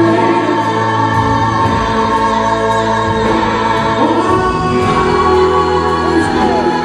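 Live band playing a slow ballad, with gospel-style backing singers holding chords behind the lead vocal and a cymbal keeping a steady beat.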